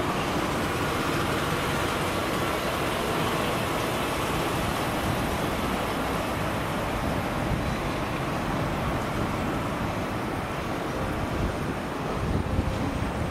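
Class 37 diesel-electric locomotive, with its English Electric 12CSVT V12 engine, running steadily as the train moves slowly round a curve.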